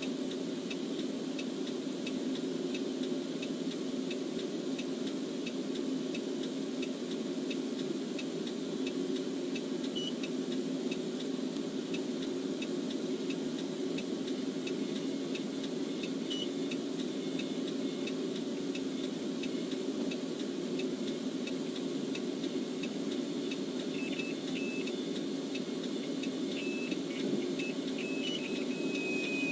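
Steady hum of an idling police patrol car picked up by its dashcam audio, with faint regular ticking. A few short high beeps come in during the last few seconds, ending in one longer, slightly falling tone.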